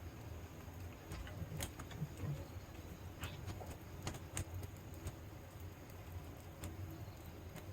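Wood fire crackling in a fire pit: irregular sharp pops and snaps, roughly one every second or so, over a low steady rumble.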